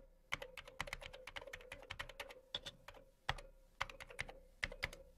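Typing sound effect: quick, irregular keystroke clicks, several a second with short pauses, over a faint steady hum.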